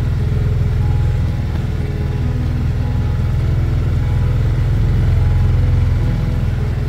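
Small motorboat's engine running steadily under way, heard from on board as a low, even hum.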